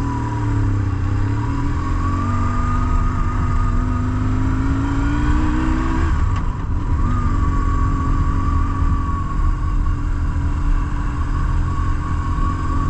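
BMW R1150GS Adventure's flat-twin boxer engine under way. It rises in pitch under acceleration, drops at a gear change about six seconds in, then runs steady.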